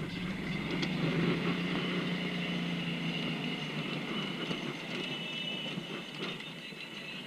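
Golf cart driving over a rough dirt path: a steady low motor hum that fades out after about three and a half seconds, over the continuous rumble and rattle of the cart.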